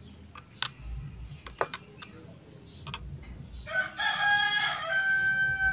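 A few light clicks and scrapes of a spoon stirring noodles in a small metal wok, then about four seconds in a rooster crows once, a loud held call of about two seconds.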